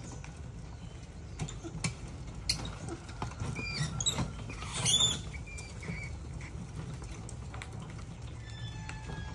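Rats squeaking and scrabbling on a wire-mesh cage: scattered claw taps and clicks with a few short high squeaks, the loudest about halfway through.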